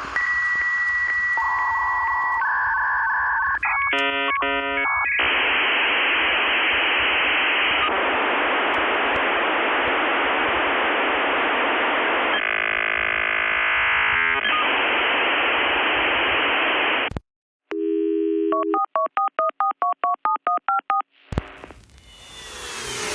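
Dial-up modem connection sound over a telephone line: steady tones and dialing tones, then handshake squeals and a long even hiss that cuts off sharply about 17 seconds in. After a brief silence comes a run of quick alternating beeps, and music starts right at the end.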